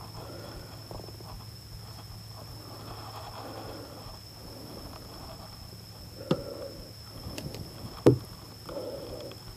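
Light shuffling and handling noises in a small wooden boat, with two sharp knocks on the boat about six and eight seconds in, the second the louder. A steady high whine and a low hum run underneath.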